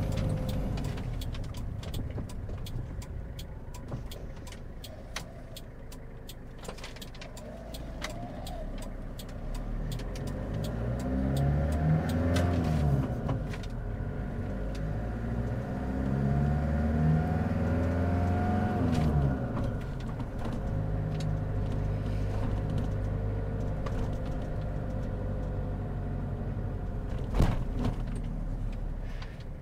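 Toyota Toyoace cab-over truck's 3L 2.8-litre four-cylinder diesel, heard from inside the cab while driving. The engine note rises twice as it accelerates about midway, then settles into a steady cruise. Light clicks and rattles throughout, with a sharper click near the end.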